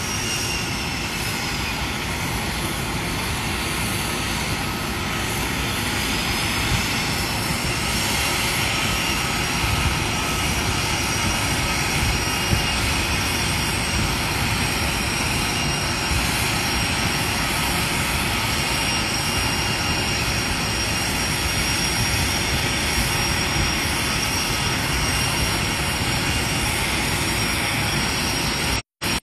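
Steady roar of a jet aircraft turbine with a high, thin whine over it. It cuts off abruptly near the end.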